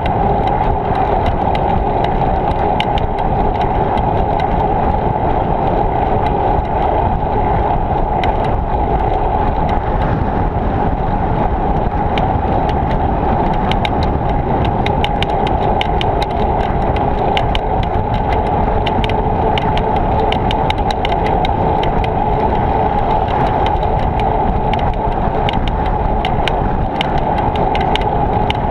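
Wind and rolling noise on a bicycle-mounted action camera while riding: a steady, loud rush with scattered sharp ticks.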